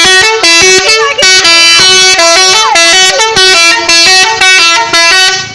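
Truck 'telolet' musical horn playing a fast tune of short stepped notes that jump up and down in pitch. It is loud, with brief gaps between the notes.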